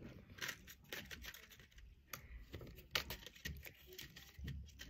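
Faint, scattered light clicks and rattles of a small clear plastic case being handled, with long false fingernails tapping against the plastic.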